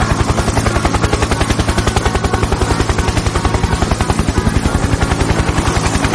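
Helicopter rotor sound effect: a loud, fast, even chopping that holds steady throughout.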